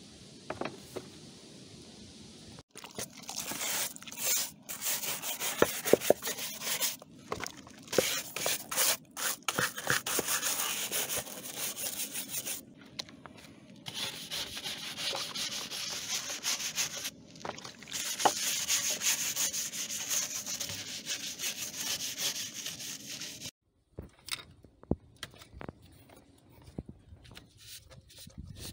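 A plastic cabin air filter housing being scrubbed with a wet scrubber and soapy water: a rasping rub in quick runs of strokes with short pauses. It stops suddenly near the end, leaving only a few faint clicks of parts being handled.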